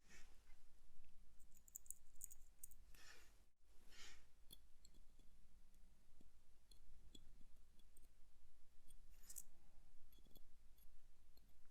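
Light clicks and taps of small metal tools and parts on a wristwatch movement being assembled, with a few short soft swishes. A faint steady low hum runs underneath.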